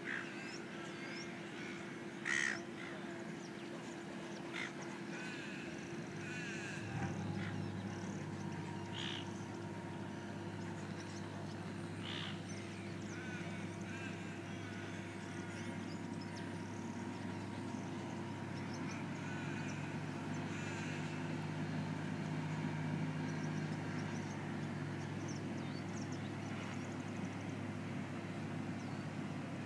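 Waterfront ambience: a steady mechanical hum with scattered bird calls. A low, steady drone like distant machinery comes in about a quarter of the way through and carries on.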